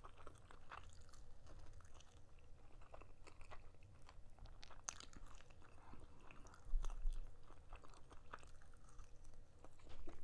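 A person chewing and biting a chicken drumstick close to the microphone, with small crunches and moist clicks from its sugar-coated crust. A brief dull low bump comes about seven seconds in.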